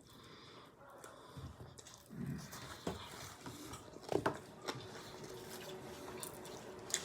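Quiet eating sounds: chewing on pizza, with scattered small clicks and taps.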